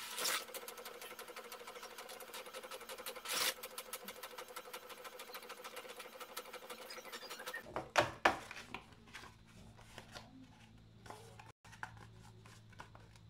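Epson L360 inkjet printer printing the reverse side of a manually duplexed sheet: the mechanism runs with rapid rhythmic ticking and a steady whir. About eight seconds in it stops with two loud clacks, leaving a quieter low hum.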